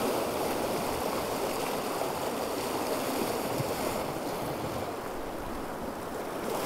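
Sea surf washing and churning over the shore rocks just below, a steady rushing that eases slightly near the end.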